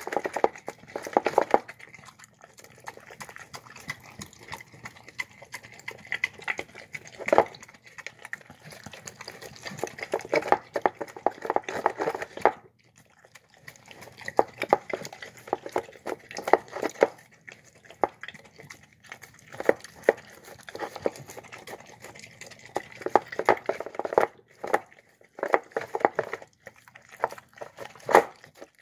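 A dog eating soft, wet food from a bowl: chewing, smacking and licking in bursts, with a few sharper clacks and a short pause about midway.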